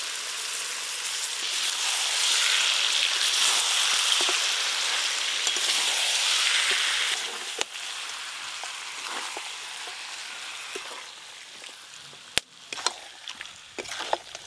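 Masala-coated chicken pieces sizzling in hot oil and spice paste in a metal kadai, just added to a masala that has released its oil and now being sautéed. The sizzle is loudest in the first half and dies down after about seven seconds. Near the end a metal spatula knocks and scrapes against the pan.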